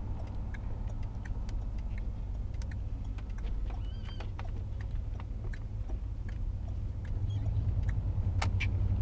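Car driving, heard inside the cabin: a steady low engine and road rumble that grows louder about seven seconds in. Scattered small ticks and rattles and a couple of faint squeaks sit on top.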